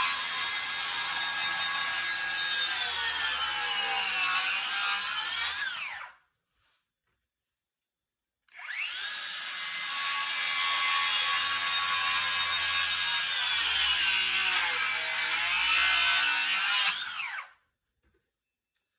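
Circular saw set to 2 inches deep cutting kerfs into a timber to rough out a timber-frame notch: two long runs, its whine dipping in pitch as the blade takes the wood and picking back up. The saw stops about six seconds in and starts again a couple of seconds later.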